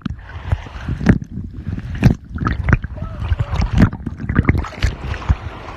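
Sea water sloshing and splashing close to the microphone, broken by many sharp, irregular knocks.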